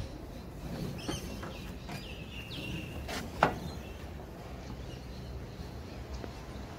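Rope being pulled and tied off against a ute's metal tray rail, with a few light knocks and one sharp crack about three and a half seconds in. Birds chirp briefly a couple of times over a low background rumble.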